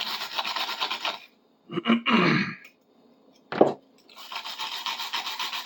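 Hand wire brush scrubbing a metal tool part in rapid strokes, in two bouts about three seconds apart. A short, louder noise about two seconds in and a brief sharp one a little later fall in the gap between them.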